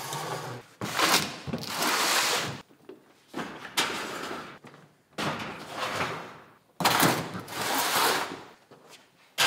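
Plastic storage totes being slid and scraped across steel wire-mesh shelves and set down, several times, each slide lasting a second or two.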